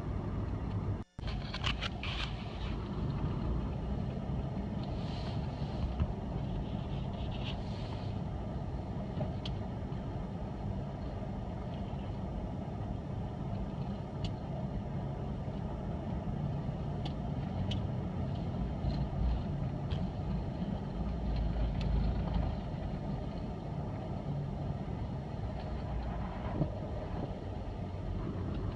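Steady low rumble of a car's engine and tyres rolling on a snowy road, with scattered faint clicks. The sound cuts out briefly about a second in.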